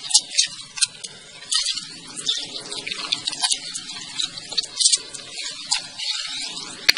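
Wet smacking and crackling of mud and water as muddy hands handle a freshly caught octopus, in irregular bursts with a sharp click near the end.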